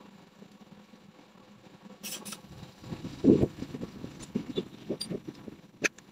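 Small handling noises of work on parts: two sharp clicks, then a dull knock followed by a run of light taps and rubbing, with a couple more sharp clicks near the end.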